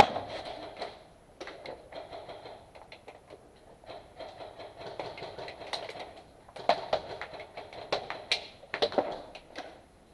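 Airsoft guns firing echoing bursts of rapid shots in concrete rooms, with several sharper cracks in the second half.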